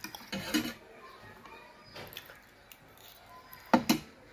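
Eating sounds: a metal fork scraping and clinking against a ceramic plate of noodles, with chewing. The loudest clatter comes near the end, when the fork is set down in the plate.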